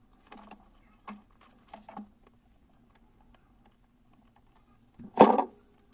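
Scattered light clicks and taps, then a louder clatter lasting about half a second, about five seconds in.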